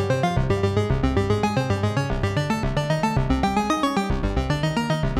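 Eurorack modular synthesizer playing a looping sequence of short pitched notes, about five a second. This is the plain patch without the matrix mixer, full and rich, with only a small amount of frequency modulation.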